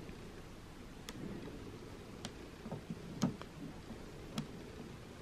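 A dust-removal sticker pressed and lifted repeatedly on a phone's glass screen, making faint light ticks about once a second over a soft rustle.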